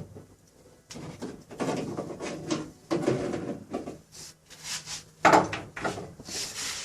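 Metal door-latch assembly scraping, rubbing and clunking inside a steel truck door as it is worked out by hand: a string of irregular rubs and knocks.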